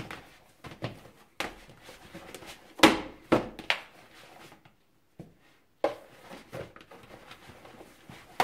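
Risen yeast pizza dough being pressed, folded and knocked back by hand in a plastic bowl, giving irregular soft thumps and slaps. The loudest thumps come a little under three seconds in and again around three and a half seconds.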